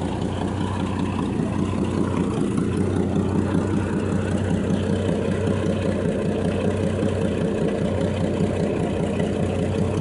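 1989 Jeep Cherokee's 4.0L inline-six engine idling steadily, its alternator charging, heard close up in the open engine bay.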